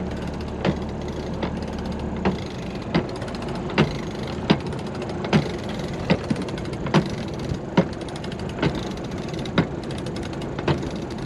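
Sailboat sheet winch being cranked with a winch handle to haul in the jib sheet for a close haul, its pawls ratcheting: a sharp click about every second, with fainter quick clicking in between.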